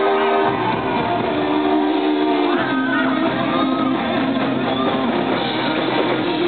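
A rock band playing live at full volume, with electric guitars to the fore over drums.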